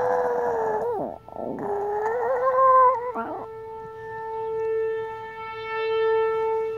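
Old Chihuahua howling twice along with a siren. A wavering howl breaks off about a second in, and a second, louder howl rises a little and fades out near the middle. Under it the siren holds one steady tone throughout and swells slightly toward the end.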